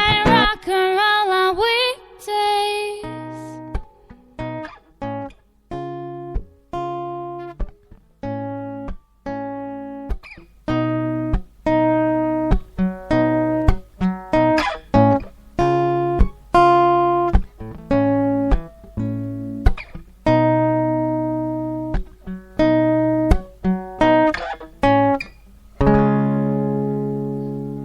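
Acoustic guitar played live in strummed chords, closing out a song. A sung line ends about three seconds in, then the guitar plays alone, and a last chord near the end is left ringing and fading.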